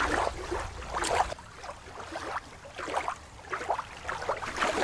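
Water lapping and slapping in short, irregular splashes, a few each second.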